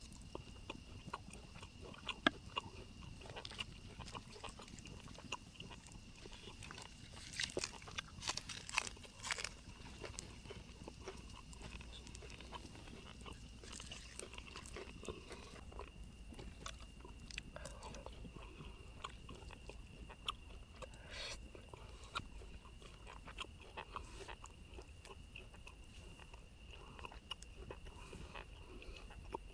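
Close-up chewing and crunching of food: irregular small crunches and clicks, with a cluster of louder ones about seven to ten seconds in.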